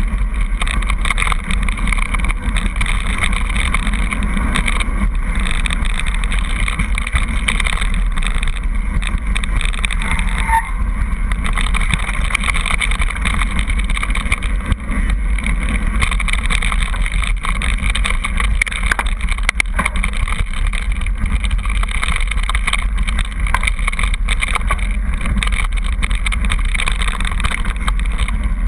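Wind rushing over a mountain bike's on-board camera microphone as it rolls downhill, with tyres crunching over a gravel and stone track and a constant patter of small rattles from the bike.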